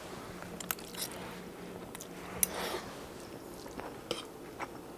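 A person eating spaghetti: a few light clicks of a fork against a plate, and quiet chewing.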